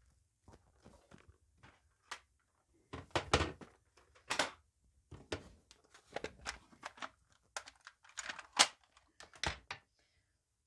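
Irregular clicks and knocks of a clear plastic storage case of sponge daubers being handled, and a dauber taken out and set down on the craft mat. The sharpest knocks come about a third of the way in and again near the end.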